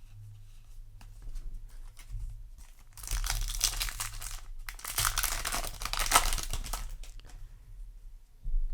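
A foil Yu-Gi-Oh! booster pack being torn open and its wrapper crinkled, with light rustling at first and loud, dense crinkling from about three to seven seconds in.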